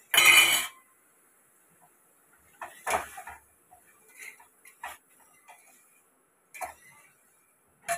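A metal ladle knocking and scraping inside an aluminium pressure cooker as the vegetables are stirred. A short, loud clatter comes right at the start, followed by a cluster of scrapes about three seconds in and scattered single taps.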